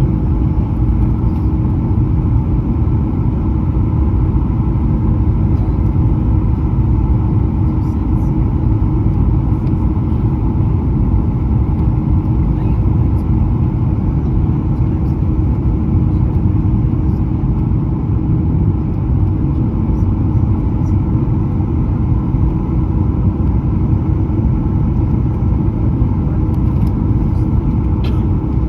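Steady rumble of a Boeing 737-900 airliner's jet engines and airflow, with a faint constant hum over a deep roar and no change in level.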